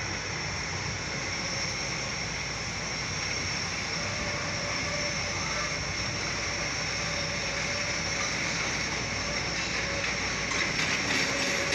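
CTA Bombardier 5000-series 'L' train approaching from the yard, a steady rumble with a faint steady whine that grows louder toward the end.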